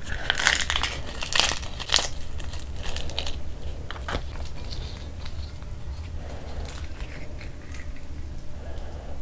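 Crisp, puffed fried puris being torn open by hand, crackling and crunching. The crackle is densest in the first two seconds, comes again a little before the middle, then gives way to quieter handling of food. A steady low hum runs underneath.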